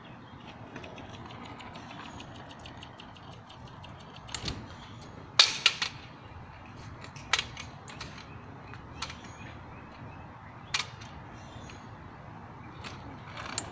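Kick scooter clattering on asphalt: scattered sharp clacks and rattles, the loudest a quick cluster a little before the middle, over a steady outdoor hiss.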